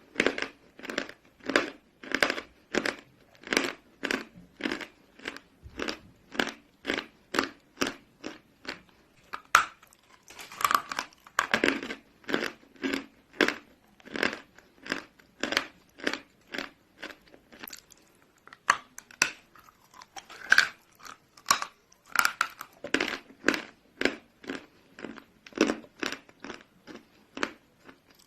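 Close-miked chewing of a block of chalk: rhythmic crunching chews, about two to three a second, with a few louder, denser crunches between them.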